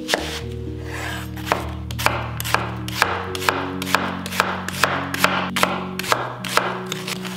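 Knife chopping vegetables on a cutting board, steady strokes about two a second.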